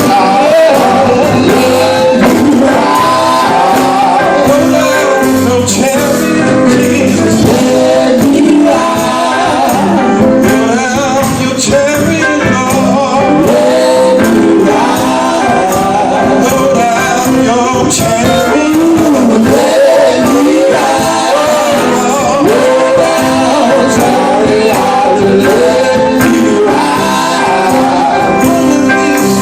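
Gospel group of male singers performing with instrumental backing.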